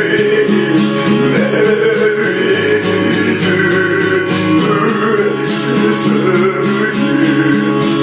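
Country-style rock-and-roll music: guitar playing over a steady beat, with no singing.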